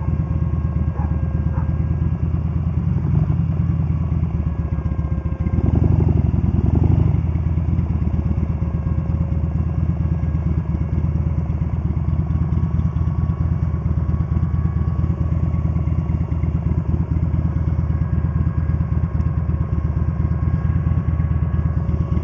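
Buell motorcycle engine running with a dense, low pulsing note, growing louder for a couple of seconds about six seconds in, then steady again as the bike rolls up and stops.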